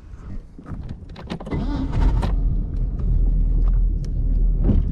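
A boat's engine running underway: a steady, loud, deep rumble that sets in about a second and a half in. Before it there are a few light clicks and knocks.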